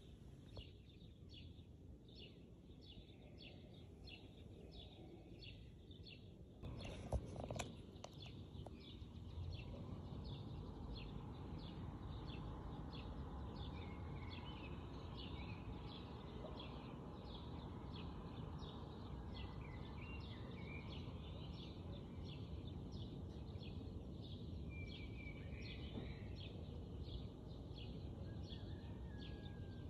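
Small birds chirping over and over, about twice a second, over a steady low rushing noise, with a single knock about seven seconds in.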